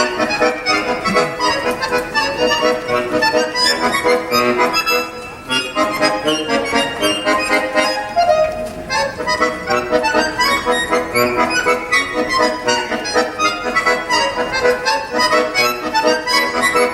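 Accordion playing a tune without a break, with quick note changes over sustained reedy chords.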